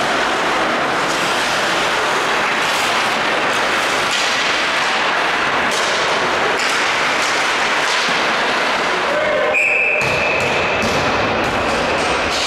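Ice hockey play in a rink: a steady scrape of skates on the ice, with scattered clacks of sticks and puck. A short, shrill referee's whistle sounds about nine and a half seconds in.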